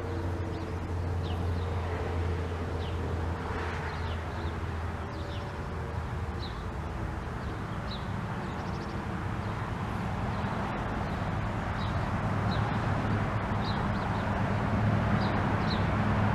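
Outdoor ambience after a Thunderbolt tornado siren test: the siren's last low tone dies away in the first second or two. Small birds chirp about once a second over a steady traffic rumble that grows louder toward the end as a vehicle comes closer.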